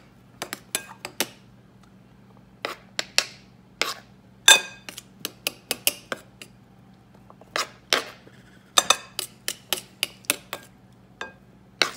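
Metal utensil clinking and tapping against a glass mixing bowl as butter cubes are stirred through flour, in irregular clusters of sharp clicks, the loudest about four and a half seconds in.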